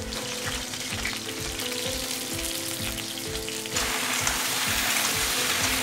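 Cauliflower florets sizzling in hot oil in a steel kadai as a metal spatula turns them, over the steady hum of a kitchen exhaust fan. The sizzle gets louder about four seconds in.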